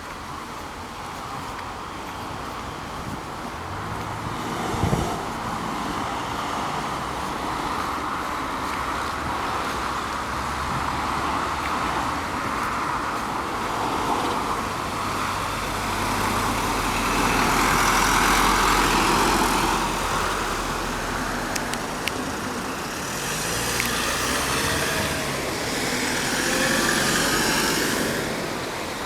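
Road traffic: a steady hum of cars with vehicles passing, swelling louder about two-thirds of the way through and again near the end.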